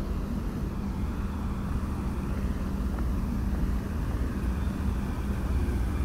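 Steady low rumble of motor-vehicle engines, with a faint steady hum running under it.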